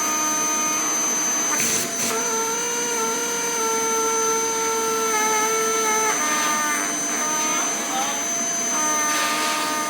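Hoover vacuum cleaner running with a steady high whine. Over it a held pitched tone sounds for several seconds at a time, stepping up or down in pitch a few times.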